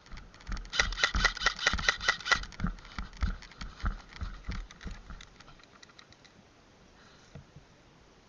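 Airsoft guns firing in quick succession, a rapid run of sharp pops about six a second that thins out and fades over several seconds.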